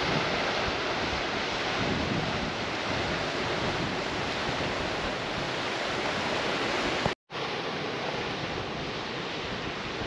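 Steady rush of river water over rocky rapids, mixed with wind buffeting the microphone. The sound breaks off for a moment a little after seven seconds, then goes on slightly quieter.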